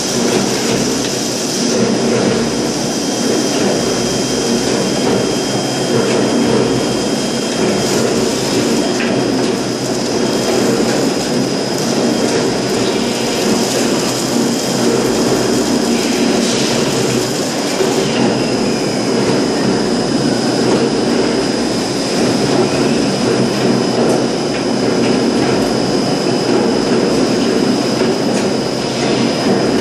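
Large hydraulic blow-moulding machine for plastic drums running: a loud, steady machine hum with a thin high whine held over it.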